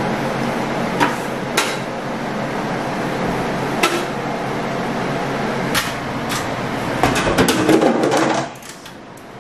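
A metal taping knife clicks and scrapes against drywall at a corner, a few sharp taps spread seconds apart, over a steady fan-like hum. Near the end comes a cluster of knocks and rustling as the camera is handled and moved, and then the hum drops away.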